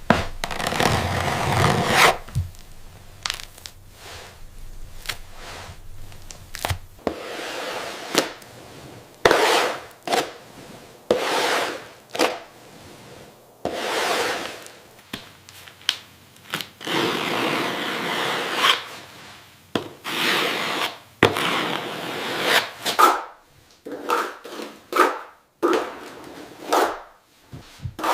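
A hand tool working wood, in long, uneven scraping strokes that turn short and quick near the end.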